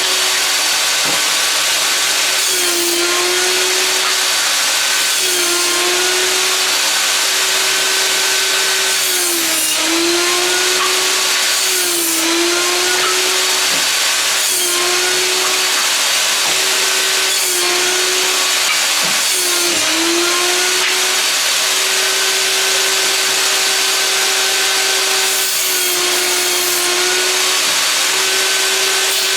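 Einhell table saw running continuously and cutting old boards into firewood pieces. Its motor tone dips briefly and recovers every few seconds as the blade takes each cut through the wood.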